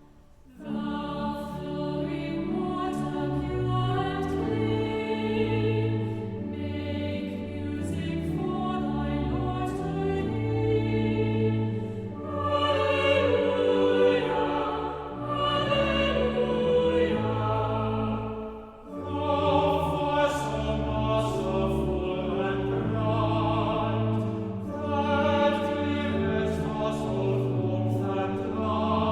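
Church choir singing a hymn with sustained accompaniment, pausing briefly between lines about a third of the way before the end.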